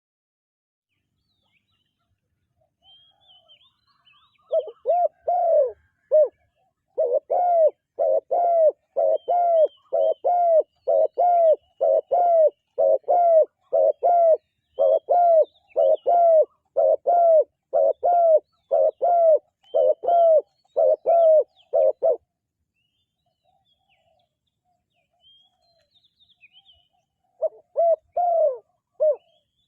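Spotted dove cooing in a long, rapid series of short coos, about two a second, then pausing and starting again near the end. Faint chirps of small birds sound in the background.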